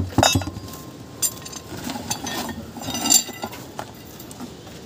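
Scattered light clinks and knocks, with a few sharp taps and a small cluster of them about three seconds in.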